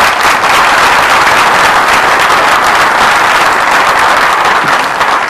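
Audience applauding: a roomful of people clapping together, loud and steady.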